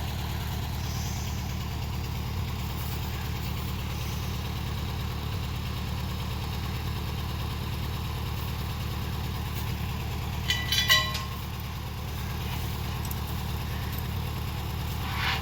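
Engine idling steadily with a low hum. About ten seconds in comes a short burst of higher ringing clatter, like metal knocking on metal.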